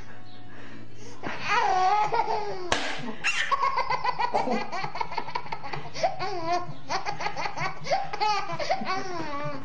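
A toddler laughing hard. It breaks into laughter about a second in and goes on in a long run of rapid, short laugh pulses.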